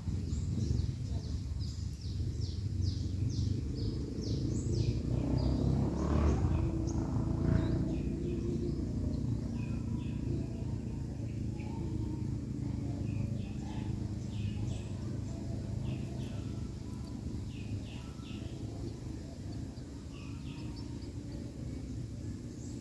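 Munias (emprit padi) giving many short, thin, high chirps over steady low outdoor rumble, which swells briefly about six seconds in.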